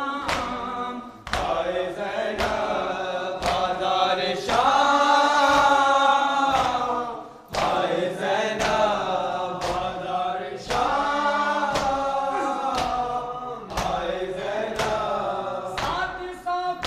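A group of men chanting a noha (Shia lament) together in a sung, drawn-out melody. Rhythmic chest-beating (matam) strikes fall about once a second.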